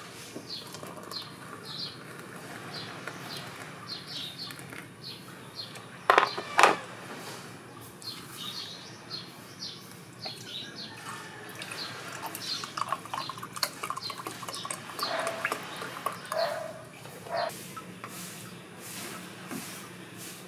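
Small birds chirping steadily in the background while hot water is poured from an electric kettle into mugs near the start. About six seconds in come two loud sharp knocks, and there are lighter clinks later on.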